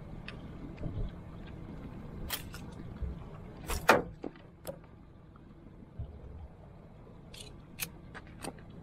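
Sharp clicks and knocks from a barramundi being lifted on a fish-lip grip and handled in a boat, the loudest knock about four seconds in, over a low steady rumble.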